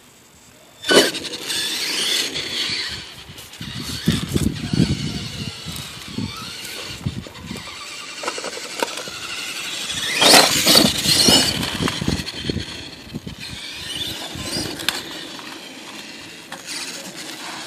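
Radio-controlled monster truck driving on asphalt, its motor revving up and down in pitch, loudest about a second in and again around the middle.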